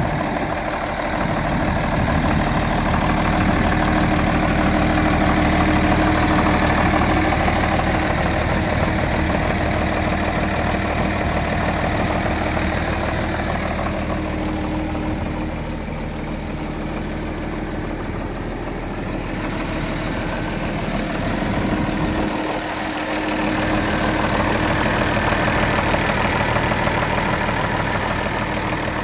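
1977 John Deere 4630 tractor's six-cylinder diesel engine running steadily at idle, a little quieter for a few seconds midway.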